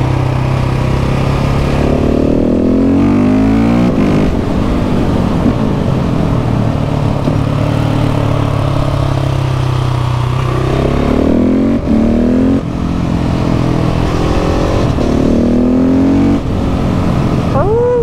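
KTM 690 SMC R supermoto's single-cylinder engine heard from onboard while riding: a steady note for about the first ten seconds, then a few rises in revs with short dips in loudness between them as the throttle closes and opens through downhill bends.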